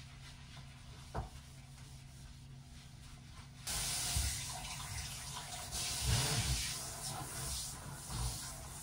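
A tap is turned on about a third of the way in and water runs steadily into a sink, with a few knocks of things being handled under it.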